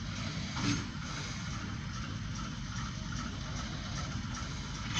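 Steady engine idle heard from inside a car cabin, with a single brief knock about a second in.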